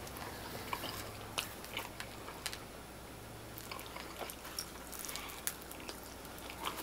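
A person biting into and chewing a slice of baked potato pizza, with soft mouth clicks and smacks scattered through the chewing.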